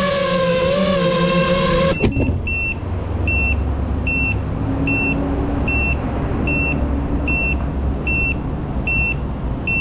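Geprc Mark5 FPV quadcopter's motors whining, then cutting off abruptly about two seconds in as the drone lands and disarms. After that a short high electronic beep repeats about every 0.8 seconds over a low rumble.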